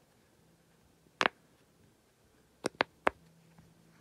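Bubbles of a silicone pop-it fidget phone case, turned inside out, being pressed through one at a time, each giving a sharp pop: one about a second in, then three in quick succession near the end. The inside-out side is the louder, more satisfying popping side.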